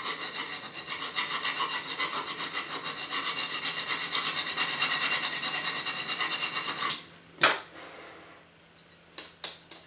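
Hand file rasping in fast, even back-and-forth strokes across the edge of a 4 mm aluminium plate, stopping about seven seconds in. A single sharp knock and a few light clicks follow as the plate is handled.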